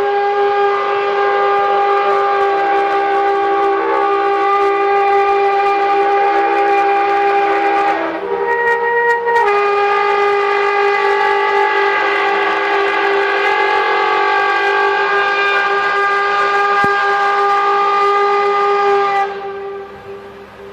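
Bulldozer scraping finished concrete, making a loud, steady, horn-like drone with many overtones; the pitch shifts briefly about eight seconds in, returns, and fades out near the end. This grinding drone is the noise that was taken for mysterious 'trumpet sounds from the sky'.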